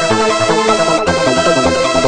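Electronic background music: held synth notes over a steady pulsing bass beat.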